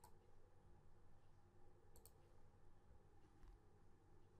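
Near silence with faint computer mouse clicks, one at the start and another about two seconds in.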